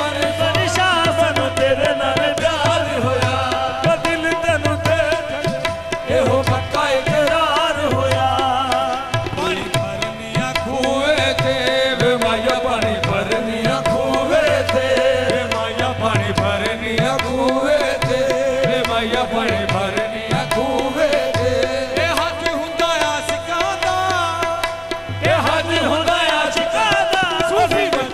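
Qawwali music: several male voices singing wavering, ornamented lines over a steady harmonium drone, with tabla keeping a driving beat.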